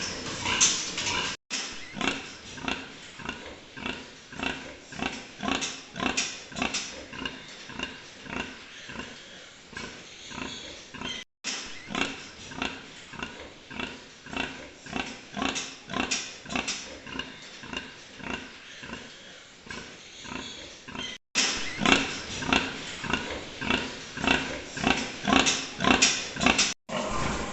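A group of pigs calling, short grunts and squeals overlapping several times a second, with the sound cut off for an instant four times.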